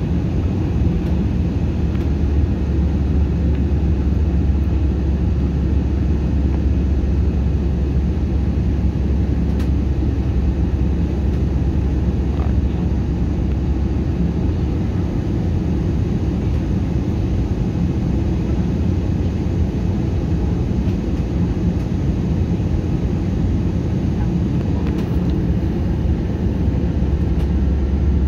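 Airliner cabin noise heard from inside during the descent to landing: a steady, even low rumble of engines and rushing air.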